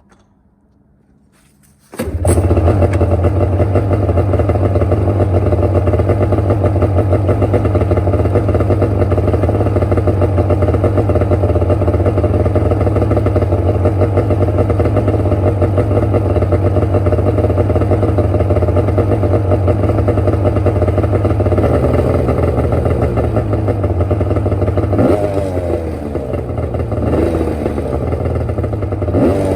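Polaris 700 two-stroke snowmobile engine starting about two seconds in, catching at once and running at a steady idle. Near the end the throttle is blipped twice, the engine revving up and dropping back each time.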